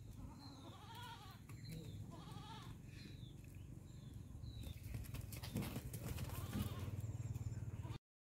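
Goats bleating: a few short bleats, about a second apart at first, with another later on, from a buck and a doe in heat during courtship.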